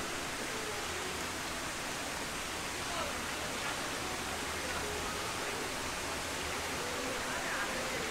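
Steady rushing outdoor ambience with faint, distant voices.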